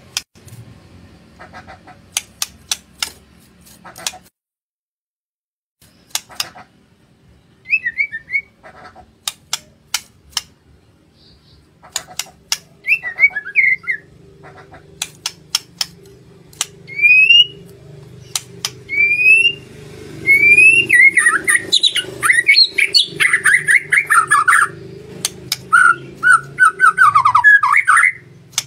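White-rumped shama (murai batu) singing: sharp clicks, then short rising whistles and rapid, varied warbled phrases that grow denser and louder in the second half. A steady low hum runs underneath.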